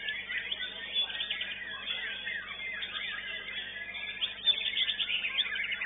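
Many caged songbirds singing at once, a dense, unbroken tangle of quick overlapping whistles and chirps, among them the white-rumped shama in the nearest cage.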